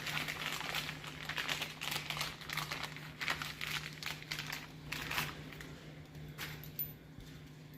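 Plastic parts packaging crinkling and rustling as it is handled, in irregular bursts that die down about six seconds in, over a steady low hum.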